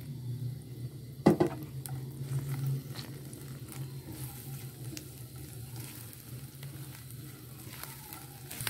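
Sliced onions and green chilli paste frying in a little oil, sizzling lightly as a silicone spatula stirs them around a non-stick pan, with a sharp knock about a second in. A steady low hum runs underneath.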